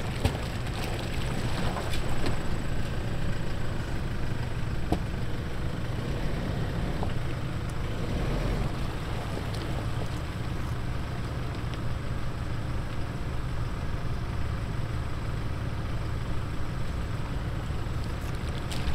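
Off-road 4x4 vehicle driving on a trail: a steady low engine and drivetrain rumble, with a few sharp knocks and rattles now and then.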